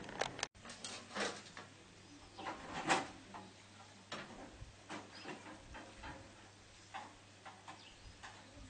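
Irregular scattered taps and clicks, a few of them sharper knocks, over a quiet background.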